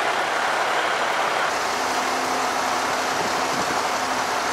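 Steady vehicle engine noise, as of idling vehicles, with a constant hiss; a steady low hum joins about a second and a half in.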